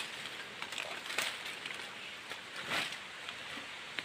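Faint outdoor background noise with a few soft knocks, about a second in and again near three seconds in.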